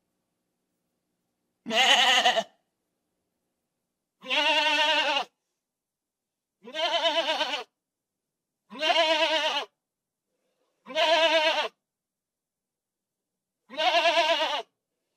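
Goat bleating: six separate quavering bleats, each about a second long, spaced roughly two seconds apart with silence between.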